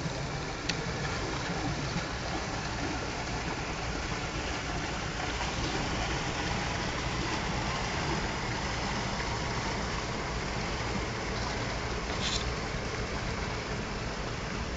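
Steady low rumble of a boat's engine running, mixed with water churning, with a brief hiss about twelve seconds in.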